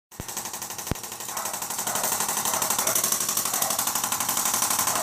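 Handheld electric chiropractic adjusting instrument tapping in a rapid, even stream of mechanical pulses, after two sharp clicks in the first second.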